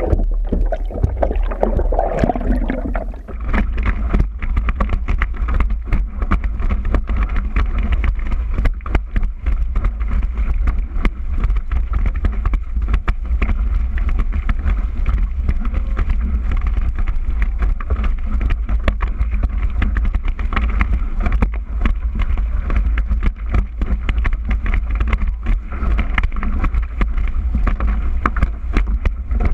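Wind buffeting the microphone of a board-mounted action camera, a loud steady rumble, over water rushing and splashing against a kitesurfing surfboard as it skims the waves, with many small knocks from the chop.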